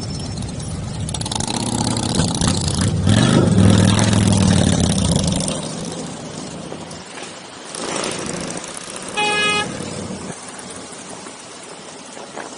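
Motorcycle engines running, swelling to their loudest about three to five seconds in and then dying away. A short horn toot sounds near the end.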